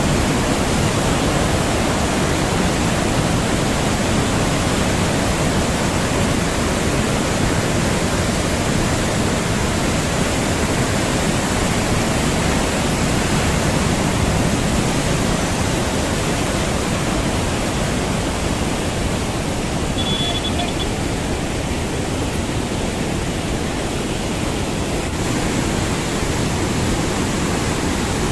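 Damodar River floodwater rushing through the open gates of the Durgapur Barrage, a loud, steady, unbroken churn of turbulent water. A huge flood release is under way.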